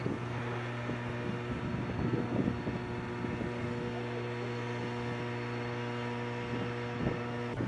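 Steady, even machinery hum, low and droning with a few evenly spaced higher tones above it, with a few faint knocks from metal gear being handled.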